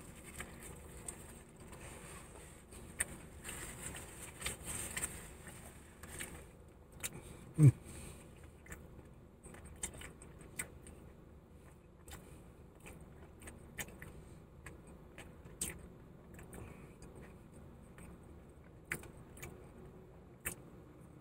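Faint clicks and light rustling from someone eating and handling a sandwich and its wrapping, with one short, low 'mm'-like vocal sound about eight seconds in.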